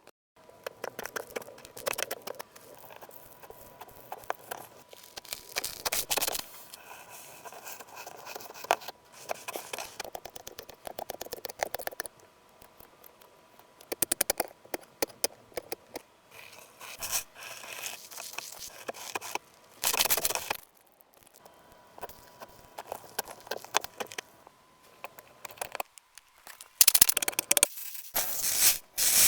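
Slime being handled: squished, stretched and poked, giving crackly clicking and scraping sounds that come in irregular bursts of a second or two with short pauses between.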